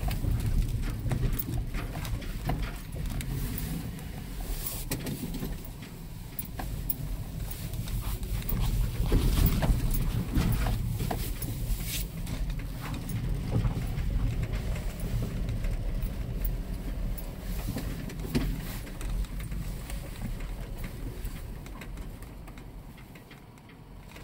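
Footsteps on grass and a dirt path with irregular rustles and knocks from the brush, over a steady low rumble of wind on the microphone; the sound fades over the last few seconds.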